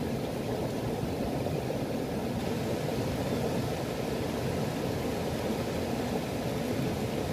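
Steady low rushing of flowing stream water, with no breaks or separate events.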